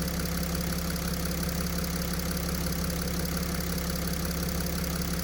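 Mercedes OM642 V6 diesel engine idling steadily with an even diesel clatter; the knock in the high-pressure fuel pump drive has not yet set in.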